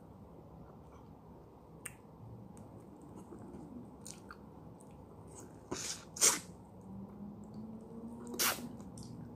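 Mouth sounds of biting, chewing and sucking on a raw lemon wedge, mostly faint, with three louder sharp mouth sounds a little before the middle and near the end, the middle one the loudest.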